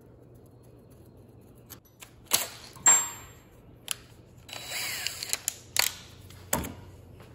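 Metal hand tools being handled and set down on a workbench: a string of sharp clicks and clanks, one ringing briefly, with a short scraping stretch in the middle.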